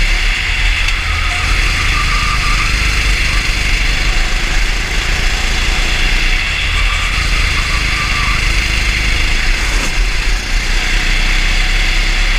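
Racing kart engine running at speed on track, heard from an onboard camera mounted on the kart, steady and loud with heavy low-end rumble.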